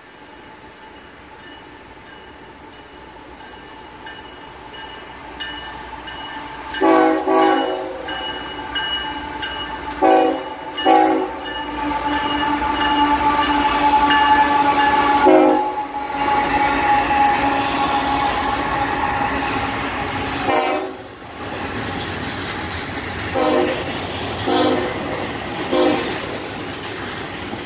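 A train drawing closer, its rumble and rattle growing louder. Over it, the horn sounds a series of blasts with several notes each: a few short ones, a long held one in the middle, then more short blasts near the end.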